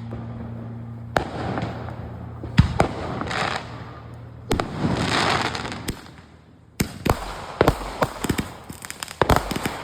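Consumer fireworks going off: a few loud bangs with stretches of fizzing hiss, then a rapid string of sharp crackling pops like firecrackers over the last three seconds. A low steady hum stops about a second in.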